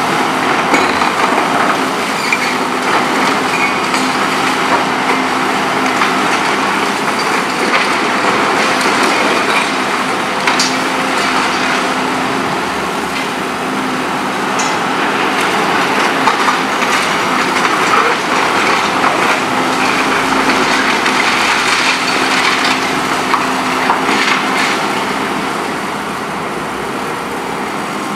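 Volvo EC 700B HR demolition excavator working under load, its engine and hydraulics giving a steady hum while the MBI CR 80R concrete shear crushes heavily reinforced concrete with continuous crunching and grinding. A few sharp cracks break through as the concrete gives way.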